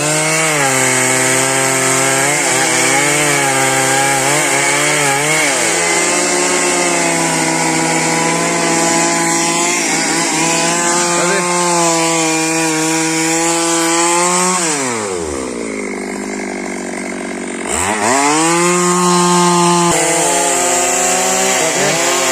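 Stihl chainsaw cutting into trembesi (rain tree) wood at full throttle, its engine pitch wavering under load at first, then steady. About fifteen seconds in it drops to idle for a few seconds, then revs back up.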